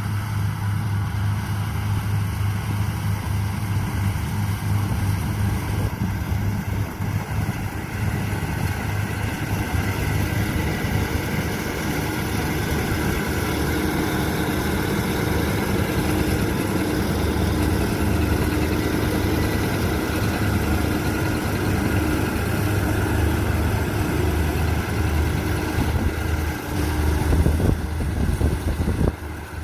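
Combine harvester running steadily during wheat harvesting: a continuous engine and machinery drone that falls off just before the end.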